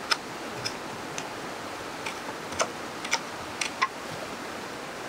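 Heavy wide-bladed cleaver chopping on a wooden cutting board: about eight sharp knocks in an uneven rhythm.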